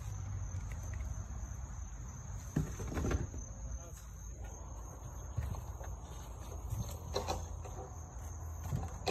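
Insects trilling in one steady high tone over a low rumble, with a few short knocks and handling thumps.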